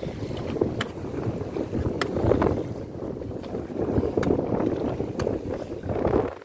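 Wind buffeting the microphone over choppy sea water around a small boat, with a few sharp clicks.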